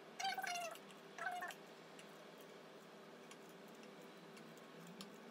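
Kitchen scissors snipping fresh chilies, faint light clicks. Near the start come two short, high-pitched calls about a second apart.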